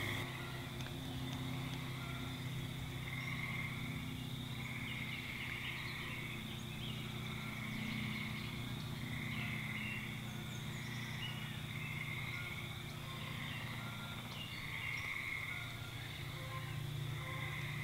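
A chorus of frogs calling: short trills, each under a second long, repeating every second or two, over a low steady hum.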